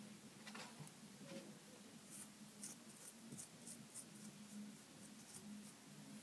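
Faint, soft strokes of a paintbrush dabbing watered-down glue onto a leaf on a glass mason jar, several short strokes in quick succession from about two seconds in, over a low steady hum.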